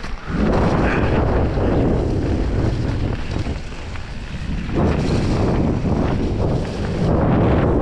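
Wind buffeting the microphone of a camera on a mountain bike ride, a loud low rumbling rush that eases for a moment about halfway through.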